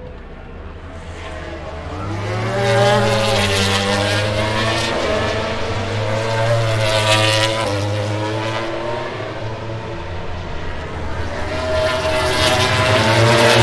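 MotoGP racing motorcycle engines at high revs, pitch rising and falling as the bikes go through the gears. They grow louder about two seconds in and surge again near the end.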